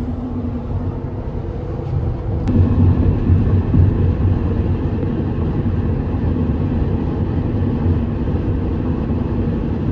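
A car driving on the road: a steady drone of engine and tyre noise, with a single click about two and a half seconds in, after which it runs a little louder.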